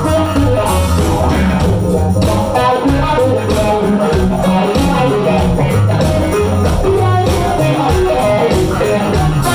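Live rock band playing loudly, with electric guitar and bass guitar over a steady beat.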